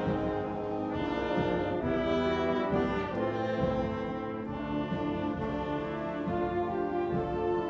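High school wind ensemble playing, with the brass carrying sustained chords that change every second or two.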